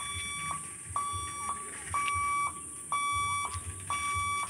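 Level-crossing warning alarm beeping: a steady high tone about half a second long, repeating about once a second. It signals that the barriers are down and a train is approaching.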